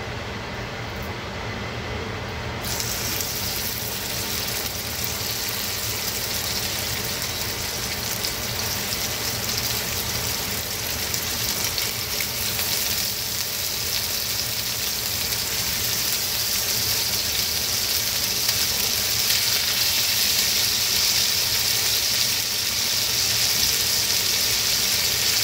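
Raw chicken thighs sizzling in hot oil in a cast-iron skillet. The sizzle turns sharper a few seconds in and grows steadily louder as more pieces go into the pan.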